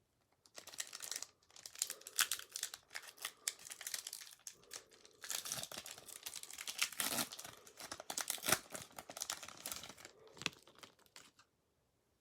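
Foil Pokémon booster pack wrapper crinkling and tearing as it is ripped open by hand: a long crackly rustle with brief pauses, stopping about a second before the end.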